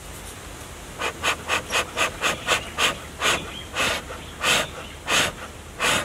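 Beekeeper's smoker being pumped by its bellows, each squeeze a short puff of air blowing through the burning fuel to get the fire going. The puffs start about a second in, quick at first at about four a second, then slow to roughly one every two-thirds of a second.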